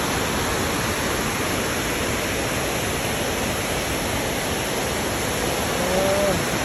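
Kegon Falls' waterfall rushing, a steady, even noise. A short vocal exclamation is heard near the end.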